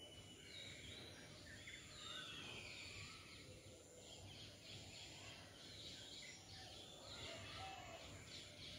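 Faint outdoor background with many small birds chirping and twittering in the trees, short quick calls overlapping throughout.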